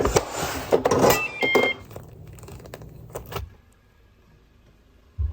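Rustling and clattering of things being handled, with sharp knocks and two brief squeaky tones, fading to faint room tone about three and a half seconds in. A single dull thump comes near the end.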